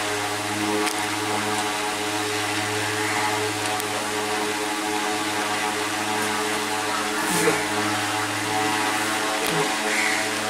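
Steady mechanical hum with a constant pitch and evenly spaced overtones, like a running electric motor, with a short knock about seven seconds in and a couple of lighter ones near the end.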